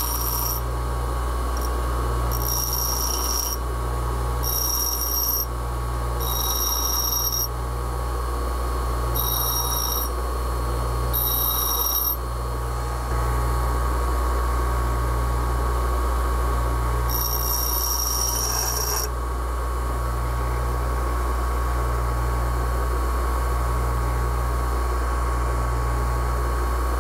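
Bench grinder running with a steady hum while the tip of a hardened O1 tool-steel boring bar is pressed to the wheel in short passes, giving about seven high-pitched grinding bursts of one to two seconds as a radius is shaped on the cutting tip. The bursts stop about two-thirds of the way through, leaving only the grinder's hum.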